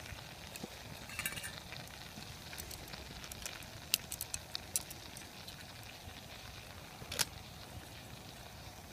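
Small wood fire crackling in a camp stove under a simmering pot: faint, with scattered sharp pops, a few louder ones about 4 seconds in and one about 7 seconds in.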